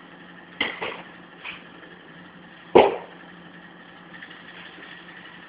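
Boxing-glove punches landing in sparring: a quick pair of thuds just over half a second in, a fainter one at about a second and a half, and the loudest thud near three seconds, over a steady hum.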